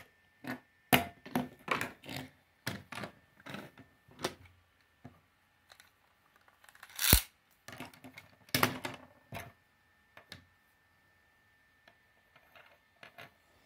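Clicks and clacks of Beyblade spinning tops, plastic with metal parts, being handled and set down on a wooden tabletop, with one sharp knock about seven seconds in.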